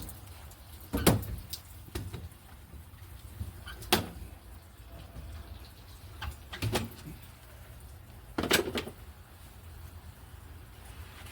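Squeegee being worked across a wet window pane, with four sharp knocks spaced two to three seconds apart between strokes and a few fainter taps.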